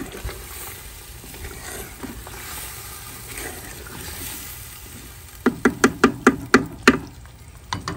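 Wooden spatula stirring chicken karahi in a clay pot, the curry simmering and sizzling at the stage where its oil separates from the gravy. About two-thirds of the way in comes a quick run of about eight sharp knocks, with one more near the end.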